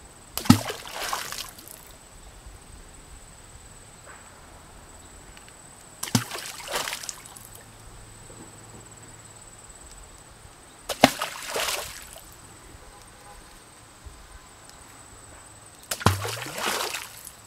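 Four water splashes about five seconds apart, each a sharp hit into water followed by about a second of spraying and splattering.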